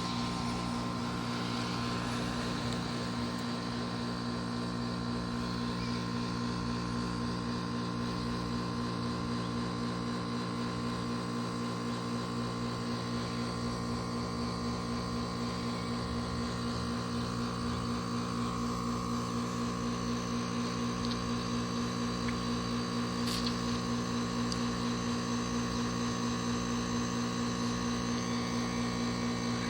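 Carrier 5-ton heat pump outdoor unit running steadily, its compressor giving a continuous machine hum with several steady tones over a wash of noise.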